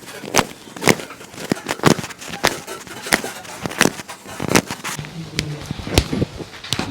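A series of sharp, short knocks, about one or two a second at an uneven pace, with a faint low hum partway through.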